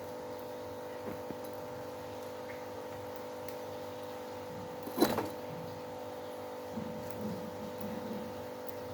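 A steady machine-like hum holding several even tones, with one sharp knock about five seconds in and a few softer low bumps near the end.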